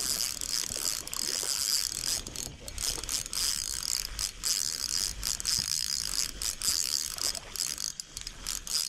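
Spinning fishing reel being cranked: a steady whirring of the reel's gears, broken by many brief pauses.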